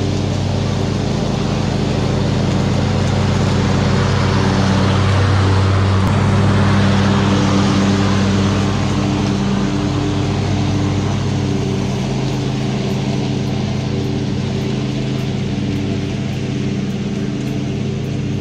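Husqvarna YTH22V46 riding lawn mower's V-twin engine running steadily under mowing load, with the deck blades cutting grass. It grows louder as the mower passes close about five to eight seconds in, then eases off as it drives away.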